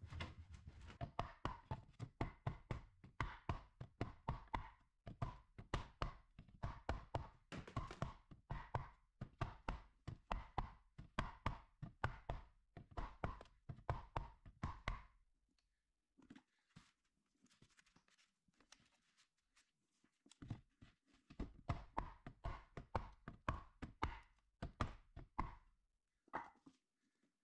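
Quick series of knocks and taps on spiral metal ducting as it is fitted through a wall, several a second. They stop for about five seconds around the middle, then start again.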